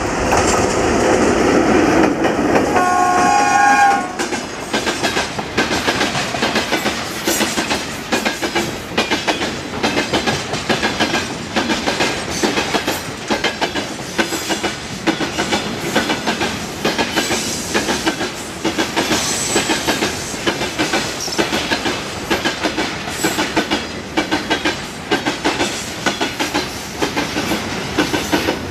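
VL80S electric locomotive passing close with a freight train. It is loudest over the first few seconds and sounds a brief horn note about three seconds in. Then a long string of tank cars rolls by with a rhythmic clickety-clack of wheels over the rail joints.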